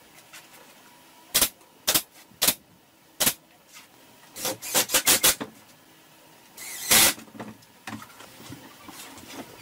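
Tools being handled at a workbench while assembling a melamine cabinet box: a few sharp separate knocks and clicks, a quick run of clicks about five seconds in, and a short burst of noise about seven seconds in.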